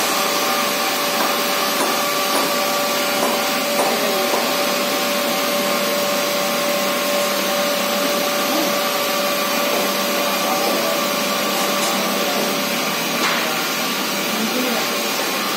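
HDPE pipe extrusion line running: a steady machine noise with a constant hum under it.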